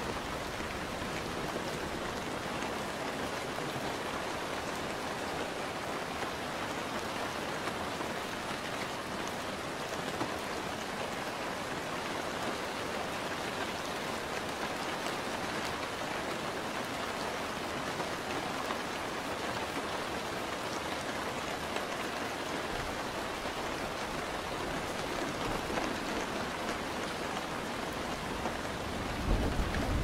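Steady rain falling, an even hiss of many drops. A low rumble of thunder swells in near the end.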